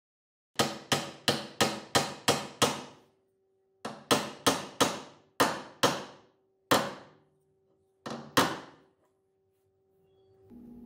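Hammer blows driving a wooden joinery piece home into a dovetail socket in a wooden rail: a quick run of about seven blows, a short pause, then about nine more, slower and some in pairs. A steady machine hum comes in just before the end.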